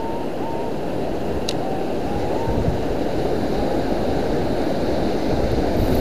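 Sea surf breaking and washing around a wading angler, a steady rushing of water that swells a little, mixed with wind on the microphone.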